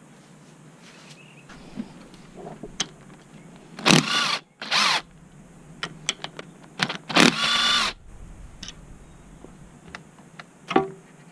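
A cordless power tool whirs in three short bursts of about half a second each, as if spinning fasteners off. Sharp metallic clicks of tools and parts are heard around the bursts, the loudest near the end.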